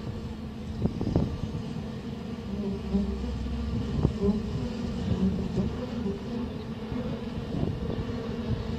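Buzzing of a bee swarm played back over speakers as a projection artwork's soundtrack: a steady, slightly wavering drone, with a few brief knocks.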